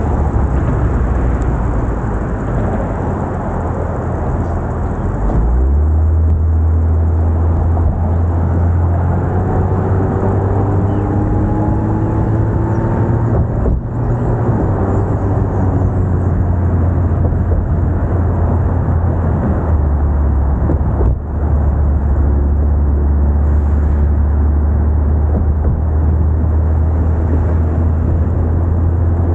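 A car driving at road speed: steady road and wind noise with a deep drone. The drone strengthens about five seconds in, fades for several seconds in the middle, then returns. Faint gliding tones are heard in the middle.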